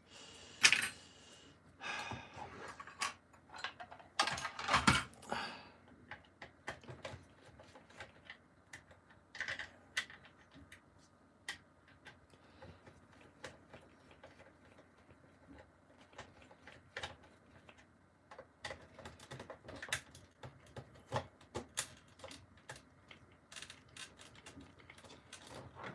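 Small screwdriver undoing screws in a plastic toy's casing: scattered light clicks and taps of the metal tip against the screws and the plastic, with the toy being handled. Louder clattering and rustling of tools being handled comes in the first few seconds.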